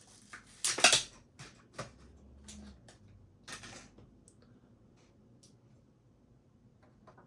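Handling and seating a laptop-style RAM module in its motherboard slot: a few sharp clicks and scrapes, the loudest about a second in, then a short scrape and small ticks.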